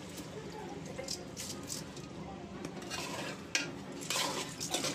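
A metal spoon stirring and scraping a thick mix of rice, lentils and cut potato around a metal cooking pot, with a few sharper scrapes against the pot in the last second or so.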